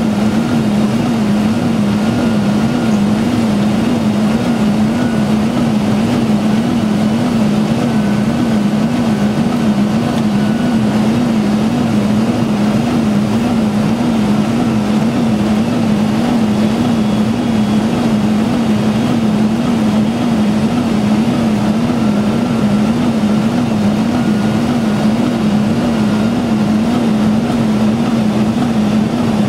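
Steady flight-deck noise of a Boeing 747-400 on approach: constant airflow rush with a loud low hum that wavers regularly in pitch.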